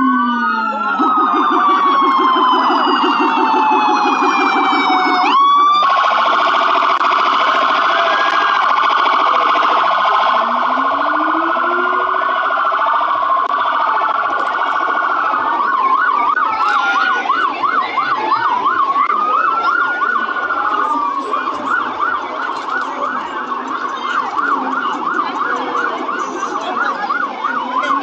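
Several emergency-vehicle sirens sounding together on passing vehicles, mixing slow rising-and-falling wails with rapid yelps. One siren winds down in a long falling glide and cuts off abruptly about five seconds in; a fast yelp starts up again a few seconds before the middle and carries on with the wails.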